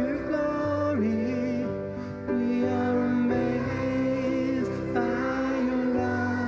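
A children's choir singing a slow worship song with piano accompaniment, sustained sung notes over a steady bass line.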